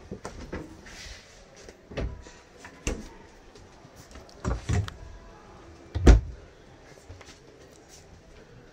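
RV refrigerator and cabinet doors being opened and shut by hand: several separate knocks and thumps, the loudest about six seconds in.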